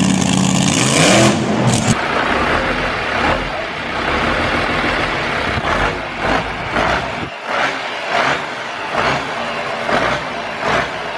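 A dragster-style trike's engine running loud and revving up about a second in. Near two seconds it gives way to a different engine, the homebuilt trike's exposed inline car engine, running with an uneven pulsing beat.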